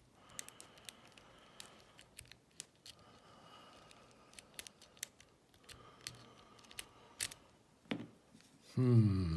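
A Bogota-style lock pick rake working the pin stack of an old Yale padlock: irregular light metallic clicks and scrapes as the pins are raked and rocked. A brief low pitched hum sounds near the end.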